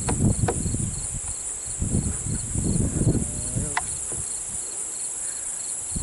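Insect chorus: a steady high buzzing with a fainter chirp repeating about three times a second, over an uneven low rumble of wind on the microphone, with a few brief clicks.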